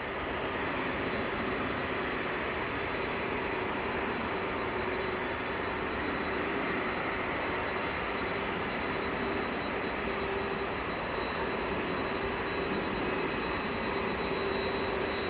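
Boeing 747's four jet engines running at taxi power as the jet rolls slowly past: a steady rush with a steady hum and a high whine.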